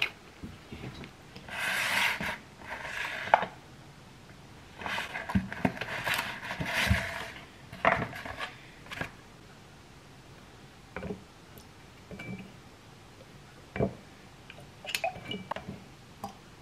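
Food packaging being handled: two long stretches of plastic and cardboard rustling and scraping in the first half, then scattered light knocks and taps of containers set down on a wooden board.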